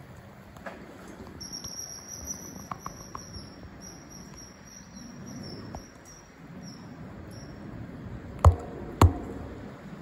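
A thin, high, steady insect trill, broken now and then, from about a second and a half in until about eight seconds. Two sharp knocks about half a second apart near the end are the loudest sounds.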